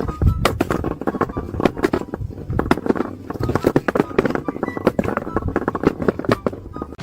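Rapid, irregular clattering knocks, several sharp hits a second.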